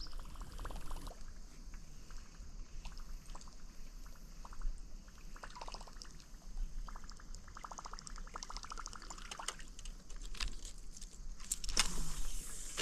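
Quiet water gurgling and trickling, with scattered clicks and runs of fast fine ticks; near the end a louder rush of water noise.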